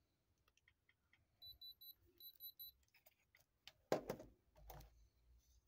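Electronic gemstone tester beeping while its probe touches the watch crystal: two quick runs of short, high beeps. Near the end comes a clatter on the table, the loudest sound.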